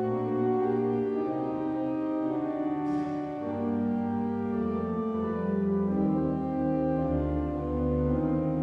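Church pipe organ playing slow, held chords that change every second or two.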